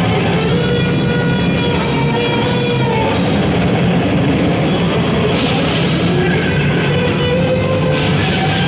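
Heavy metal band playing live, loud and dense: distorted electric guitar holding notes over rapid drumming.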